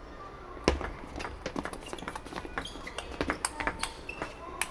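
Table tennis ball clicking off rackets and the table in a fast doubles rally: a quick, irregular run of sharp ticks, the loudest about two-thirds of a second in.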